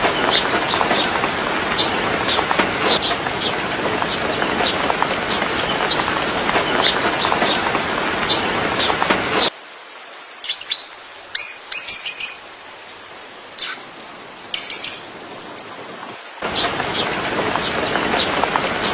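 Small bird chirping, short high notes repeating about once a second over a steady rushing hiss. In the middle, for about seven seconds, it cuts to a quieter stretch with a few separate high bird chirps and calls, then the hiss and chirping return.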